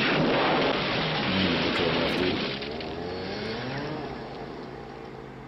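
Horror-film soundtrack: a loud rushing, rumbling noise with pitched cries mixed in, fading away over the last few seconds.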